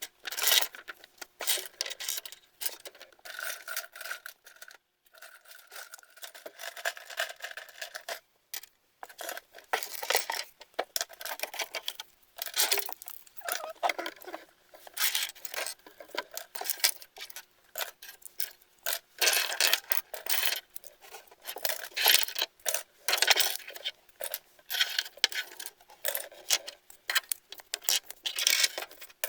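Plastic construction-toy pieces being handled and fitted together: many small irregular clicks, knocks and rattles as sticks, gears and connectors are picked out and pushed into place.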